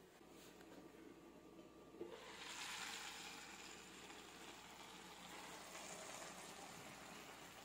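Pancit canton noodles with cabbage, carrots and ground meat sizzling in a frying pan. The sizzling is faint at first, then louder and steady from about two seconds in, just after a light click.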